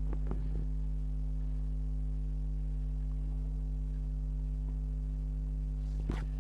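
Steady low electrical mains hum, several fixed tones stacked together, with a faint click near the end.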